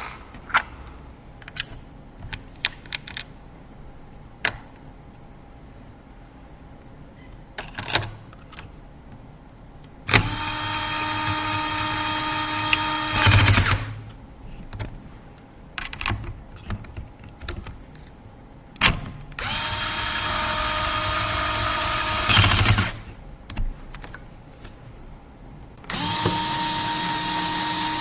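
Small electric screwdriver running in three steady bursts of about three seconds each, each ending with a brief louder burst, driving screws during PC assembly. Light clicks and taps of parts being handled fall between the runs.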